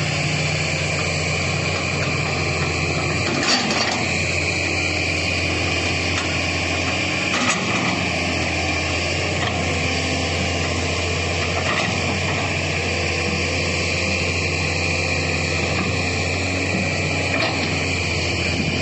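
Excavator running steadily, with four short knocks spaced a few seconds apart.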